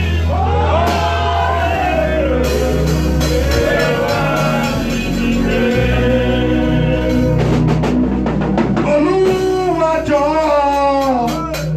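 Worship music: voices singing over a live band with sustained bass notes and drums.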